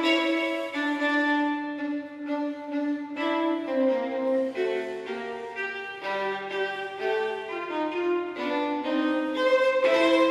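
Background instrumental music: a melody of held notes moving from one pitch to the next.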